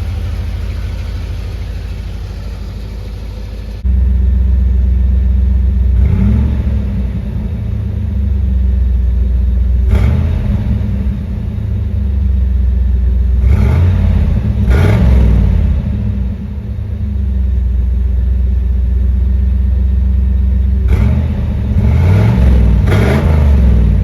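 1987 Camaro IROC-Z's V8 idling through its new stock-style exhaust and muffler, blipped several times so the revs rise and fall.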